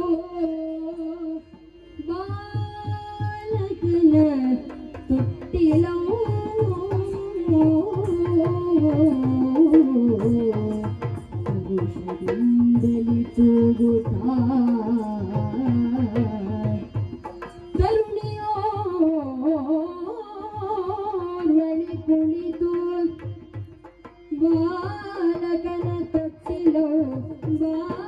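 Indian classical-style singing, one voice drawing out long ornamented phrases over a steady drum rhythm.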